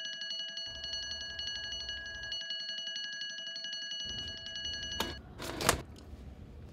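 Alarm clock ringing in a fast, steady, bell-like rattle that cuts off abruptly about five seconds in, followed by a knock and a rustle.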